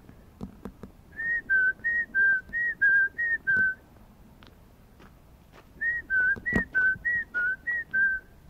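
A man whistling to call dogs: two runs of short two-pitch whistles, alternating high and low notes about eight times each, starting about a second in and again near six seconds in.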